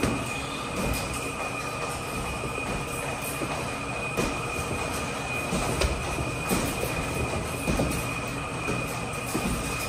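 A steady two-pitched high whine over a constant rumble, with short thuds scattered through it from boxing gloves landing and footwork on the ring canvas during sparring.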